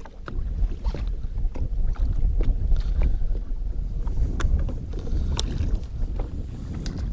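Wind buffeting the microphone in a loud low rumble, with scattered sharp clicks and taps over it.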